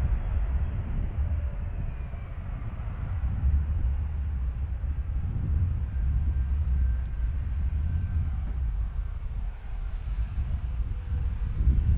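Jet airliner engines rumbling low and steady, with a faint high whine above the rumble.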